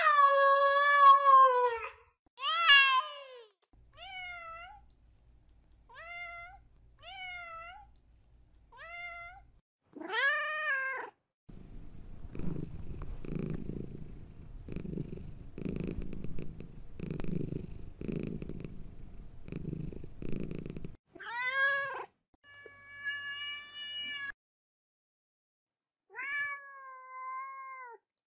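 Domestic cats meowing: a few loud, long meows, then a run of short, high, rising kitten mews. About halfway through, a cat purrs for roughly ten seconds in slow, even pulses, and two or three more long meows follow near the end.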